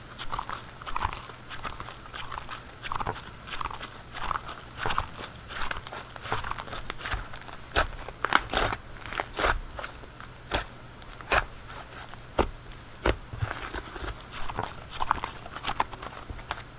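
Hands kneading and squeezing a slightly sticky slime, with irregular wet crackles and sharp pops, the loudest snaps clustered around the middle.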